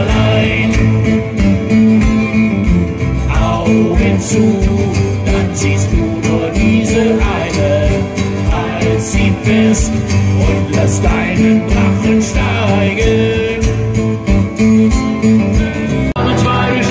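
Live band performance: strummed acoustic guitar and singing over a steady beat.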